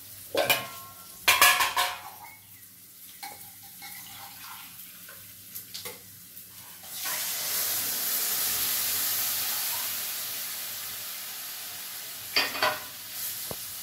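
Spatula knocking and scraping in a steel kadhai of ghee-roasted rice. About seven seconds in, milk poured into the hot pan sets off a loud sizzling hiss that slowly dies down over several seconds, with a few knocks on the pan near the end.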